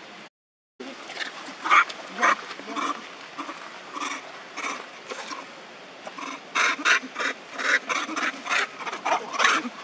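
Young macaques giving many short, sharp calls in quick succession, a few each second, over a steady outdoor hiss. The sound drops out completely for about half a second just after the start.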